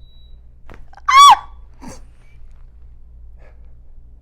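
A patient's short, high-pitched yelp at a chiropractic back adjustment, rising then falling in pitch and much louder than anything around it. A faint click comes just before it, and a breathy exhale follows.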